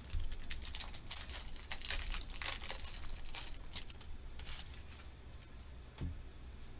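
Foil wrapper of a Pokémon Evolving Skies booster pack crinkling and tearing as it is opened and the cards are pulled out, busy for the first four seconds or so. A single soft thump comes near the end.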